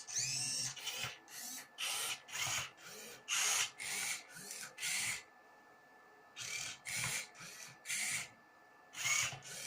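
Homemade Rubik's cube solving robot turning the cube's faces: a quick string of short whirring, grinding bursts, one per turn, broken by two brief pauses.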